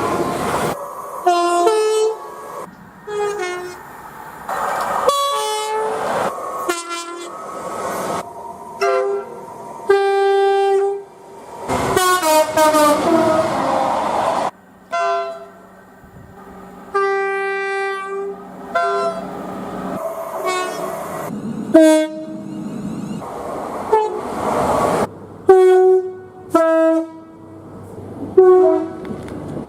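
Train horns sounding in a rapid series of separate clips, one blast after another, some long and held and others short toots, each cut off suddenly by the next. A few noisy stretches of train running sound lie between the blasts, and several quick short toots come near the end.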